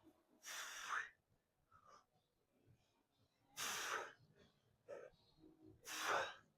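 A person breathing out hard three times, about two and a half seconds apart, each a short rush of breath.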